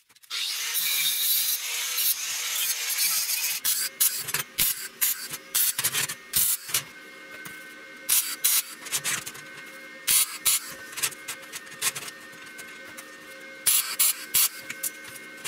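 Electric arc welding on steel rebar: a steady crackling weld for the first few seconds, then a series of short tack-weld bursts, each under a second, with pauses between them.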